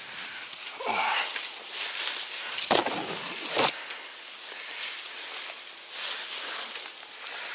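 Dry grass, reeds and stems rustling and crackling as they are pushed through and trampled by hand and foot, with a couple of sharp knocks about three seconds in.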